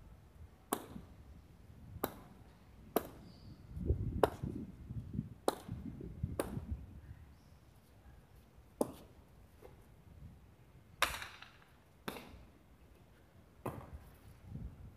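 A hard jai alai ball (pelota) being played off the court's front wall and floor with a wicker cesta: about ten sharp cracks of the ball striking, irregularly spaced a second or two apart.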